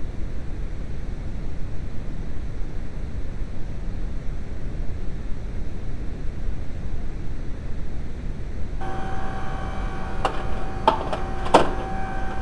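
Steady low background noise. About nine seconds in, a steady whine joins it, and a few sharp clicks come near the end.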